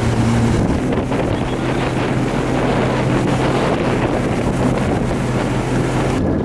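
Motorboat engine running at a steady hum, with wind buffeting the microphone.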